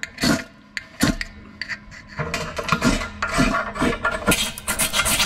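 Repeated rasping scrapes of a striker on a ferro rod, throwing sparks onto a fire-starter cube. The strokes come sparsely at first, then faster and harder from about halfway.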